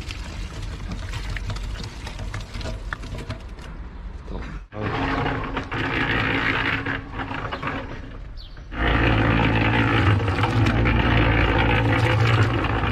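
Small 120-litre electric concrete mixer running, its drum turning over boiled meat and stale baked goods with a steady motor hum and a tumbling, rattling wash. It gets much louder about nine seconds in.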